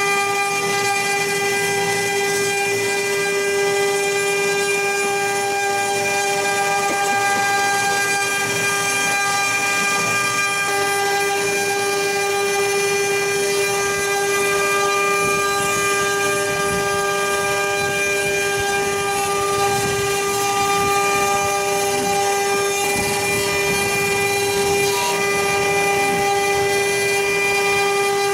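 The spindle motors of a four-spindle CNC router with rotary axes running at constant speed while their bits cut long workpieces turning in chucks: a steady whine with overtones over a rough cutting noise.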